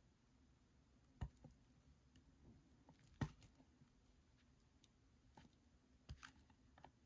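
Faint handling noise of a frosted plastic lamp shade: a few sharp plastic clicks and taps, the loudest about three seconds in, over near-silent room tone.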